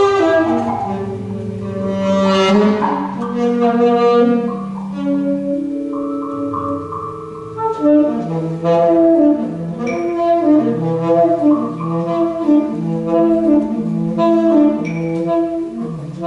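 Free-improvised live music led by a saxophone: long held notes in the first half, then a fast, repeating pattern of short notes from about halfway on.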